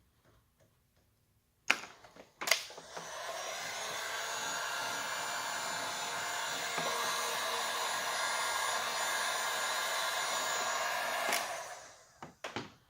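Two sharp clicks about two seconds in, then a handheld hot-air blower runs steadily for about nine seconds and winds down near the end, heating paint protection film on a truck hood to dry the alcohol slip solution and help the film stick. A few short knocks follow at the very end.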